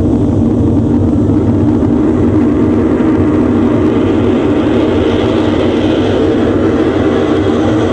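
Loud, steady jet-like roar and rumble of a staged rocket take-off. A hiss builds over it from about four seconds in.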